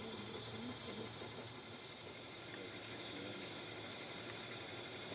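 Night-time chorus of tropical rainforest insects: a steady, dense high-pitched trilling that runs on without a break.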